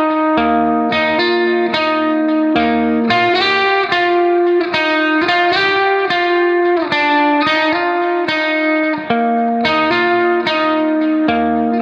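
Background music of plucked guitar notes at a steady, even pace.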